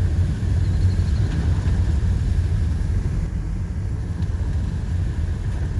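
Steady low rumble with no clear tones, holding an even level throughout.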